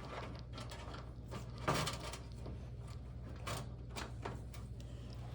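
Scrapes, rustles and small clicks of a thick motherboard power cable being pushed through a cable-routing opening in a PC case, with two louder scrapes about a second and a half and three and a half seconds in.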